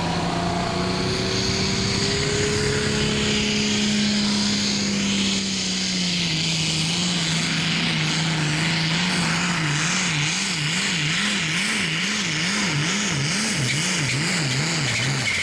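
A super stock pulling tractor's turbocharged diesel engine runs flat out under load as it drags the weight sled. About two-thirds of the way through, its pitch starts to waver up and down about twice a second as the tractor bounces down the track.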